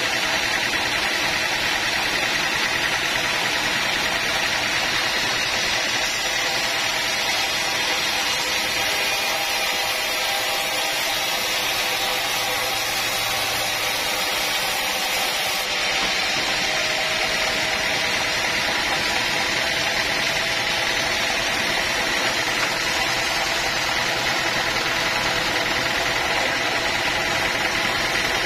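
Sawmill machinery running steadily, a continuous mechanical drone with a high steady whine over it.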